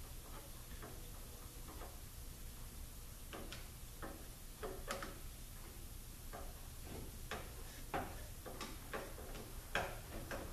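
Light, irregular clicks and taps from hand work on a 42RLE transmission valve body as the new range switch is fitted, some clicks coming in quick little clusters, over a steady low hum.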